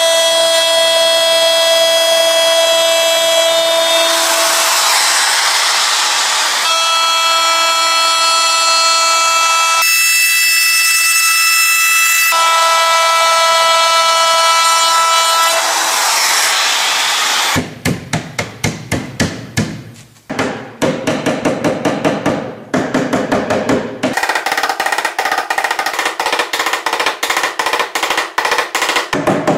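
Makita RT0700C trim router running with a loud, steady whine, its tone shifting and turning to hiss as the bit cuts a groove in pine. A little past halfway the router gives way to a mallet tapping rapidly, several light blows a second with brief pauses, knocking a tongued pine divider into its groove.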